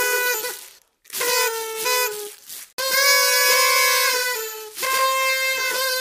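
Party trumpets blown in long toots at one steady pitch, with short breaks between them: four blasts, the second falling slightly in pitch as it ends.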